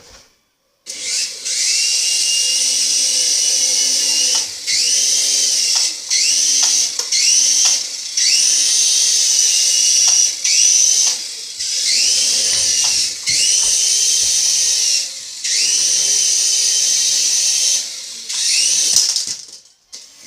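Small toy quadcopter drone's motors whining at a high pitch, throttled up in about ten bursts that each start with a quick rise in pitch and cut off abruptly.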